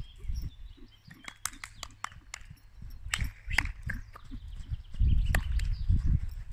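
Hoofbeats of a young bay horse moving loose at a trot and canter on a sand arena: dull thuds mixed with scattered sharp clicks. A louder low rumble comes about five seconds in.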